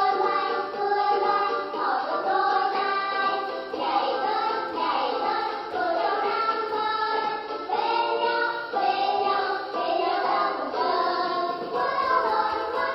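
A recorded children's song: voices singing a melody in phrases over instrumental backing.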